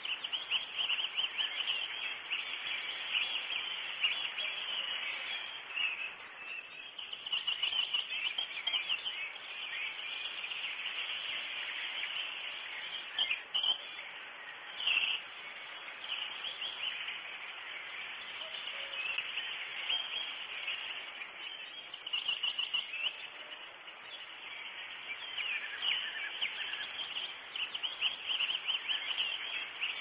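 A continuous high-pitched chorus of birds chirping and twittering, with a couple of brief louder calls about halfway through.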